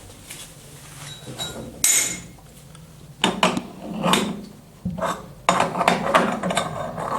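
Hard clicks and knocks of a plumbing elbow connector being handled and screwed onto the water supply valve. There is one sharp clack about two seconds in, then a run of clattering and rattling from about three seconds on.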